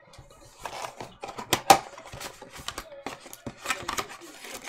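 Clear plastic wrapping on a trading-card hanger box being torn and unwrapped by hand: irregular crinkling and crackling, with the sharpest crack about a second and a half in.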